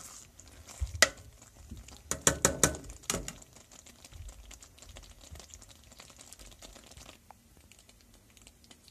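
A spoon stirring a pan of thick, cheesy Hamburger Helper, knocking and scraping against the pan: one sharp knock about a second in and a quick run of knocks around two to three seconds. After that the sauce simmers faintly.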